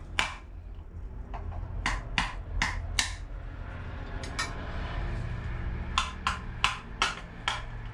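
Hammer strikes tapping out the side knockouts of a metal electrical back box: sharp metallic knocks in short runs, the longest about six strikes roughly three a second near the end, over a steady low hum.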